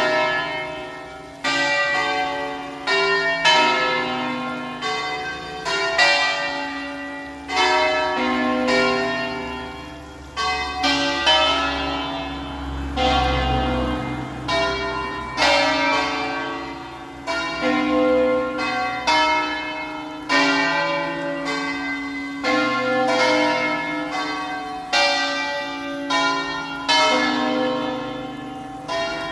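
Church tower bells ringing: several bells of different pitches struck one after another in an uneven pattern, about one to two strokes a second, each stroke ringing on into the next.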